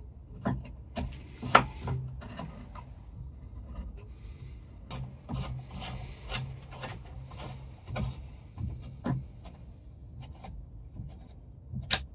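Hand tap in a T-handle tap wrench cutting an M6 thread through a drilled hole in a small metal target paddle: scraping and irregular clicks as the tap is turned back and forth, with a sharper click near the end as it is lifted out.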